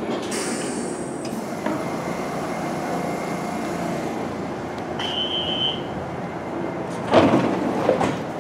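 R62A subway train standing at the platform with its doors open, giving a steady running hum. A short high electronic tone sounds about five seconds in, and a loud sudden noise comes about seven seconds in, followed by a smaller one.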